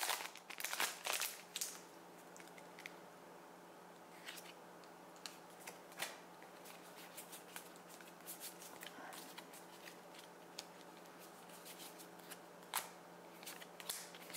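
Foil booster-pack wrapper crinkling as the cards are pulled out of it during the first couple of seconds, then faint clicks and slides of trading cards being flipped through by hand, with one sharper click near the end.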